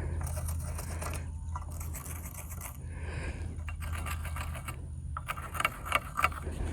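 Small clicks, clinks and scrapes of metal latch hardware and tools being handled against a wooden gate, with a quick run of sharp clicks about five and a half seconds in. A steady low hum runs underneath.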